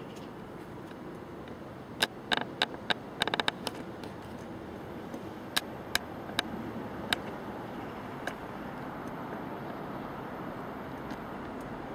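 Steady outdoor background noise with a scatter of sharp clicks, about ten in all, between about two and eight seconds in, including a short rapid rattle of clicks around three seconds in.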